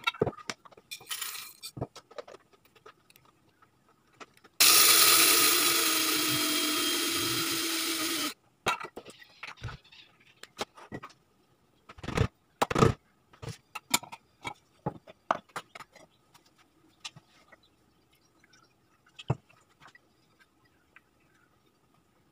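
Electric coffee grinder running for about four seconds, starting abruptly at full level, easing off slightly and then cutting off. A brief rattle of beans being poured comes about a second in, and scattered clicks and knocks of the lid and containers being handled follow the grind.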